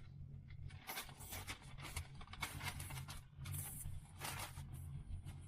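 Rustling and rummaging of bags and gear as a backpack is packed, in several short bursts over a low steady rumble.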